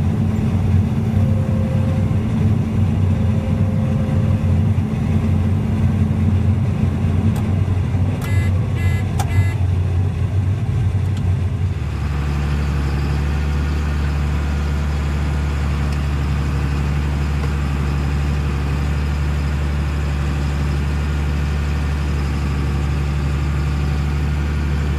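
Farm vehicle engine running steadily, with a short run of high beeps about a third of the way in. About halfway through, the engine note changes to a smoother, steadier low drone.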